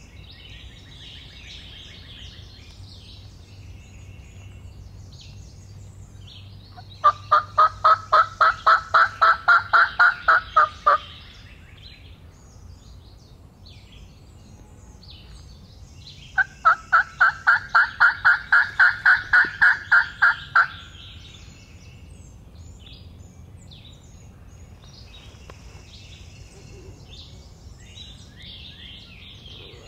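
Loud turkey yelping: two runs of evenly spaced yelps, about four a second and each lasting about four seconds, rising slightly in pitch. Faint songbirds sing in the background.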